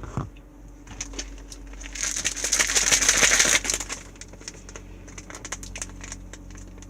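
Plastic protein-powder packet being handled and opened, crinkling: a dense rustle about two seconds in that lasts over a second, then scattered small crackles and clicks.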